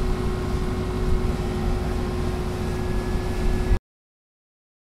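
Steady engine running under a rumble of wind on the microphone, with a constant hum; the sound cuts off abruptly near the end.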